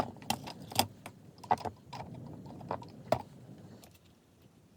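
Irregular sharp clicks and light knocks from small hard objects handled on a workbench, about seven in the first three seconds, then dying away.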